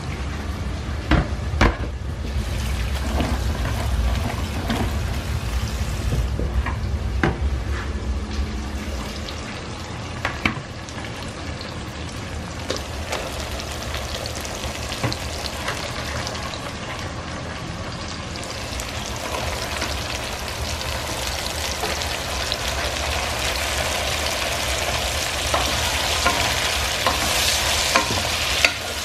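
Vegetables sizzling in oil in a cooking pot as bottle gourd slices are added and stirred with a wooden spatula. There are a few sharp knocks in the first ten seconds, and the sizzle grows louder over the second half.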